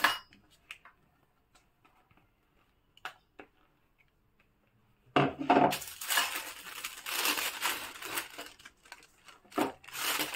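A silicone spatula scrapes cream out of a plastic mixing bowl while a plastic piping bag rustles and crinkles as it is filled. A few faint clicks come first, then a run of scraping and crinkling about five seconds in.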